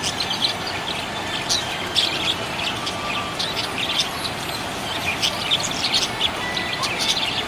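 Budgerigars chirping and twittering: a busy run of quick, high chirps, several birds overlapping.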